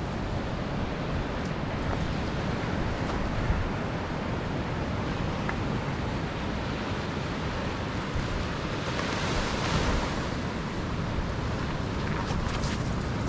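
Ocean surf washing on the shore as a steady rush, with a wave breaking louder about nine seconds in, and wind rumbling on the microphone.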